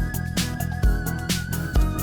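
Background music with a steady, upbeat funk-style beat: a kick drum about twice a second under bass and a held melody note.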